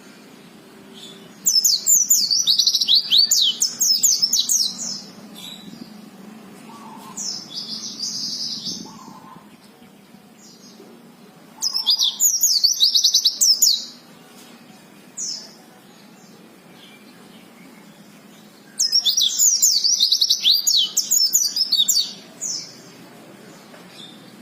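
Pleci (white-eye) singing in three long bursts of fast, high twittering notes, with a softer chatter between the first two bursts and a couple of short single calls later.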